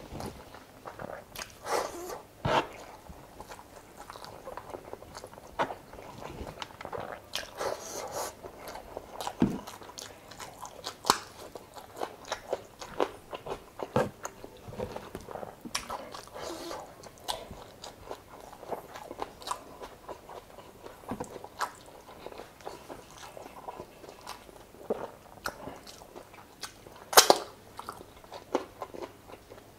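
Close-up eating sounds: a person chewing and biting into chicken adobo in coconut sauce with rice, with irregular wet mouth clicks and smacks. One louder, sharper click comes near the end.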